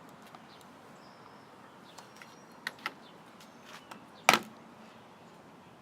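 A few small clicks and then one louder sharp clack: plastic and metal handling noises as a computer mouse is being taken apart and its screws removed.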